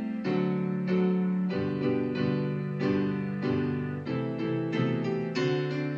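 Piano playing the instrumental break of a children's phonics song, a lively run of struck notes and chords over a bass line.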